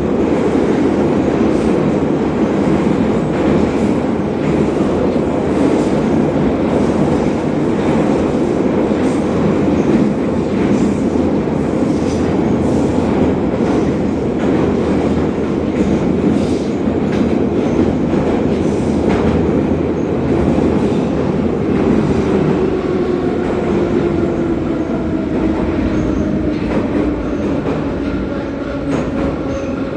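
An 81-717.5P metro train running through a tunnel, heard from inside the car: a loud steady roar of wheels and running gear, with clicks from the rail joints. From about two-thirds of the way in, a whine falls slowly in pitch as the train begins to slow for the next station.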